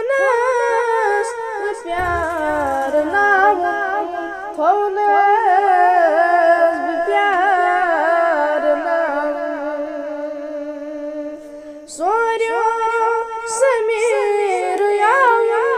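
A solo male voice singing a Kashmiri naat, drawing out long held notes with wavering ornaments. A new phrase begins about twelve seconds in after a short breath.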